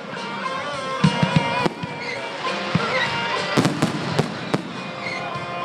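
Fireworks going off: a cluster of sharp bangs about a second in, then a run of cracks about three and a half seconds in, with music playing underneath.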